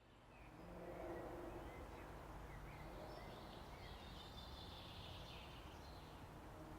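Faint outdoor ambience: birds chirping over a low, steady background rumble.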